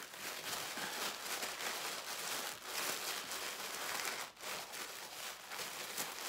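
Black tissue paper crinkling and rustling continuously as a wrapped package is unfolded by hand, with a brief break a little past four seconds in.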